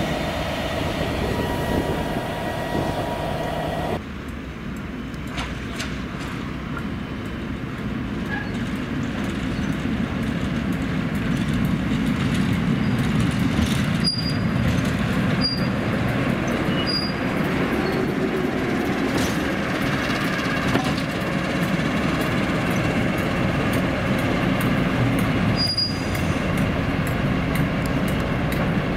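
Train rumbling along on the rails, with a few brief high squeaks from the wheels. The sound changes abruptly about four seconds in, then builds slightly.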